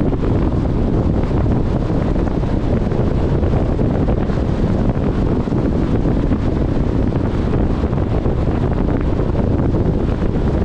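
Steady wind buffeting the microphone of a moving car, a constant low rumble with hiss.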